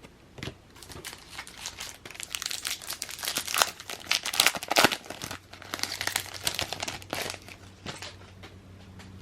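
Foil wrapper of a baseball card pack crinkling and tearing as it is opened, loudest in the middle few seconds.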